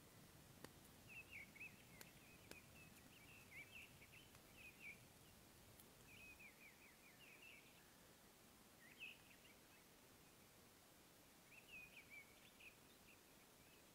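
Quiet outdoor ambience with faint birdsong: short groups of quick chirps repeating every few seconds. A few faint clicks in the first few seconds.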